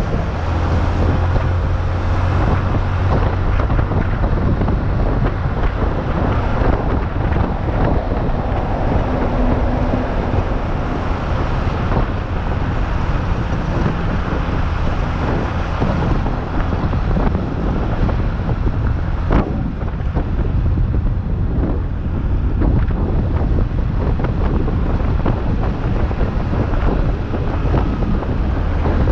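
Wind buffeting the microphone steadily while moving along, a loud low rumble with no clear engine note.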